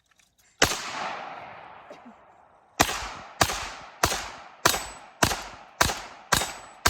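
A 9mm CZ Scorpion Evo pistol fired semi-automatically: a single shot with a long echoing tail, then after about two seconds a steady string of about seven shots, roughly 0.6 s apart.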